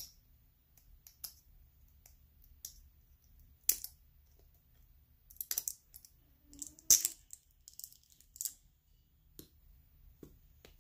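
Scattered sharp clicks and taps of small plastic glitter pots and their packaging being handled, the loudest about seven seconds in.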